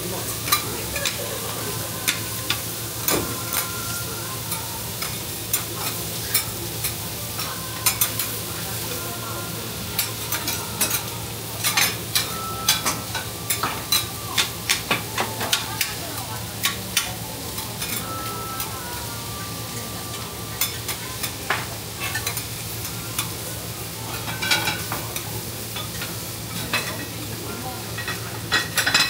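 Food sizzling on a flat-top teppan griddle, with frequent sharp clicks and scrapes of metal spatulas against the hot steel. A steady low hum runs underneath.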